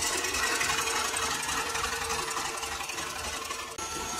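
KitchenAid stand mixer running steadily, its wire whisk beating cream into whipped cream (chantilly) in a stainless steel bowl. There is a brief break near the end, after which the motor's tone shifts slightly.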